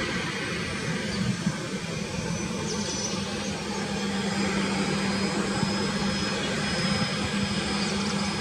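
Boeing 737-800's twin CFM56-7B turbofan jet engines running as the airliner rolls down the runway for takeoff: a steady jet noise with a low hum.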